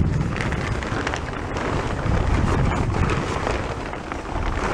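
Plastic tarp cover rustling and crackling as it is dragged off a boat, with wind rumbling on the microphone.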